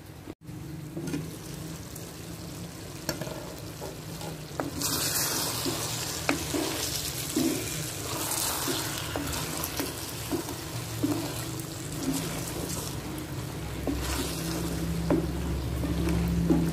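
Ridge gourd sizzling as it cooks in a clay pot, with a wooden spoon stirring and scraping against the pot. The sizzling grows louder about five seconds in.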